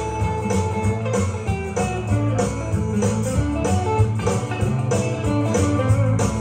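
Instrumental backing track with a prominent guitar and a steady beat, playing through a PA system with no vocal over it.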